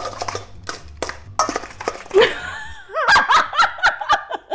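A pizza wheel clicks and scrapes against a stainless steel mixing bowl as it chops salad, a quick run of sharp knocks. About two seconds in, a woman starts laughing and keeps laughing to the end, and the laugh is the loudest thing.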